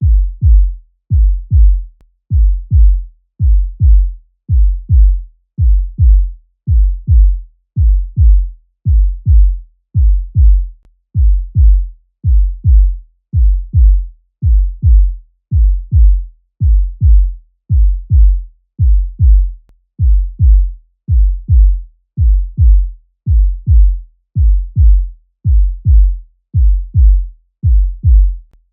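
Human heartbeat sound effect: deep, low lub-dub double thumps repeating steadily at about one beat a second.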